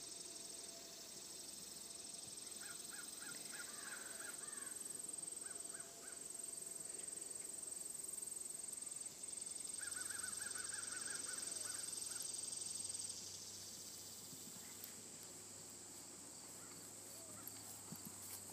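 Summer field ambience: a steady high-pitched insect drone, with a bird calling in two quick runs of short repeated notes, and faint hoofbeats on grass near the end as the horse comes closer.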